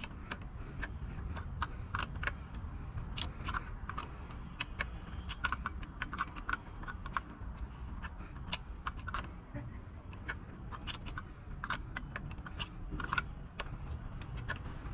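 Metal hand tools clicking and clinking irregularly against the nuts and bolts of a boat engine, a few light clicks a second, as rusted fasteners are worked loose.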